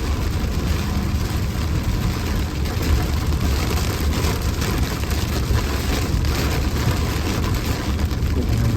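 Strong thunderstorm wind rushing and buffeting, a loud, continuous rumble heavy in the low end that rises and falls in gusts.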